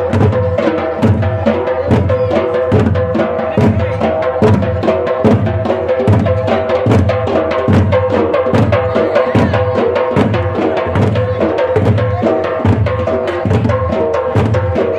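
A large ensemble of dollu drums, big barrel-shaped steel-shelled drums beaten with sticks, playing together in a fast, steady, driving rhythm. A steady held tone runs over the beat.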